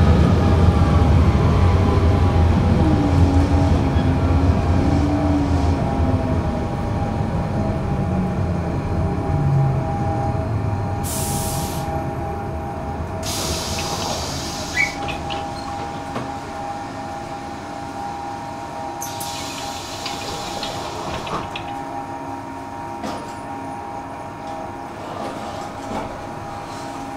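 Tram slowing down, its electric traction motor whining downward in pitch as the low rumble fades. It then hums steadily while nearly still, with three short hissing bursts.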